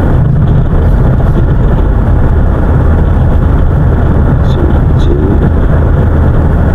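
Steady engine hum and tyre and road noise inside the cabin of a moving car.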